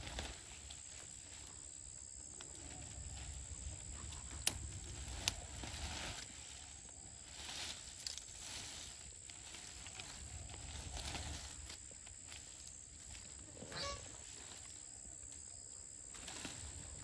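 Leaves and vines rustling as ivy gourd leaves are picked by hand from a tangle of weeds, with a couple of sharp snaps of stems breaking about four and five seconds in.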